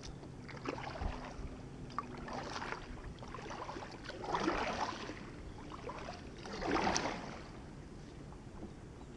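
Double-bladed kayak paddle dipping and pulling through calm river water, several unhurried strokes with soft splashing and dripping; the strokes stop near the end as the kayak glides.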